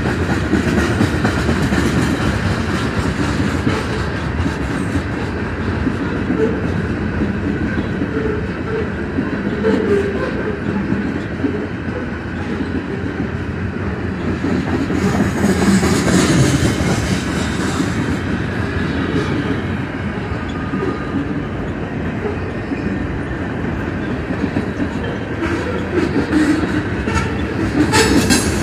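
Freight train cars (tank cars and covered hoppers) rolling steadily past: steel wheels rumbling and clattering over the rail joints. The sound grows briefly louder and harsher about halfway through.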